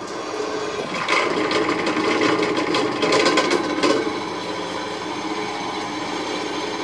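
Drill press running with its twist bit cutting through a steel knife tang. The cutting is louder and rougher from about a second in until about four seconds, then the machine runs on steadily.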